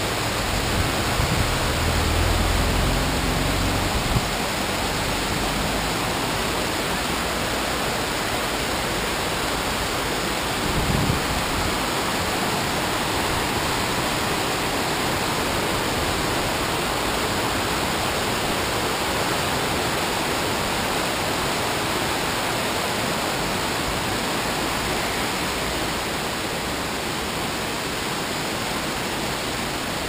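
Steady rush of water from the Chegem waterfalls pouring down the cliff into the fast river below. A few brief low bumps come within the first few seconds and again about eleven seconds in.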